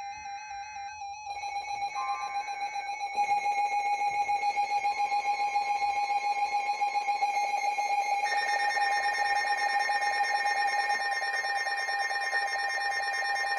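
Weather alert radio sounding its warning alarm: a loud electronic tone, rapidly pulsing, that grows louder in steps over the first few seconds. A second, higher tone joins about eight seconds in. It signals an incoming Severe Thunderstorm Warning.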